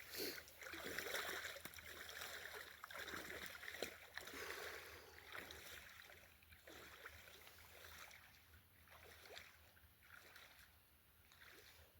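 Irregular splashing and swishing of someone wading off through marsh water, growing fainter.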